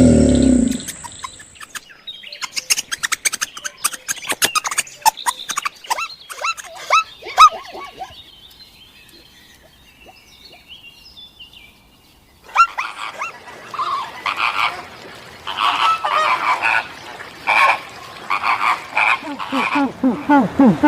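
A sequence of animal calls: a fast run of short, falling calls, a quiet stretch, then a series of repeated pitched calls from a little past halfway on.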